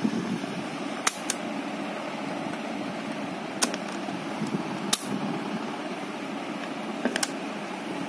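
Sharp mechanical clicks of a 1982 Philips 15AR 243 radio cassette recorder's piano-key buttons being worked: six in all, two of them close pairs, over a steady low whirring hum.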